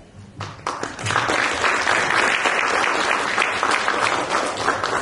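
Audience applauding in a hall: a few first claps, swelling into steady, dense applause about a second in.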